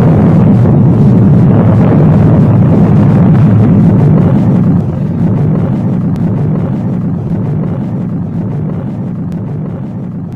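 Atomic bomb explosion sound effect in its aftermath: a loud, low rumble that holds steady, drops in level about five seconds in, then slowly fades away.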